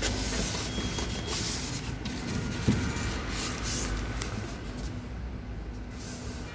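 Polystyrene packing end caps and a plastic wrapping bag scraping and rustling against a cardboard box as a packed scanner is lifted out, with one sharp knock about two and a half seconds in.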